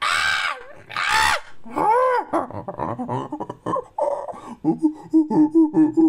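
Ape-man creature sound effect made from chimpanzee calls: two loud screams, then arching calls about two seconds in. Near the end comes a fast run of short hoots, about four a second.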